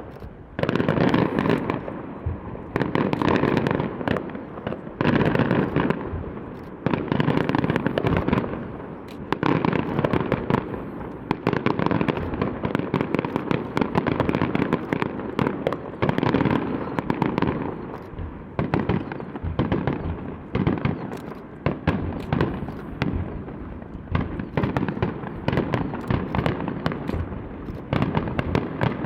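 Aerial fireworks bursting in a dense, continuous barrage: overlapping booms and crackles that swell in waves about every two seconds.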